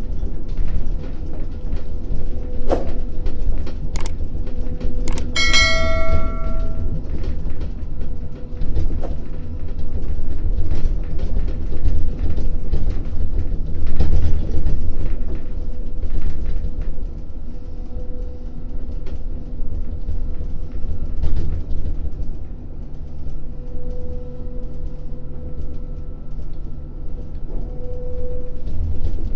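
Heavy port crane's machinery running with a steady low rumble as its grab bucket is lowered on the cable. A few sharp metallic clanks come about three to five seconds in, followed by a ringing metallic clang near six seconds.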